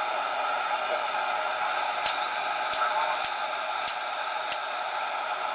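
Cobra 200GTL-DX CB radio's speaker putting out steady band hiss from an empty channel. About two seconds in come five sharp clicks, spaced a little over half a second apart.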